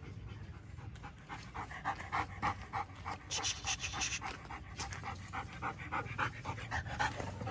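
German Shepherd panting with its mouth open: quick, even breaths, about four to five a second, starting about a second in.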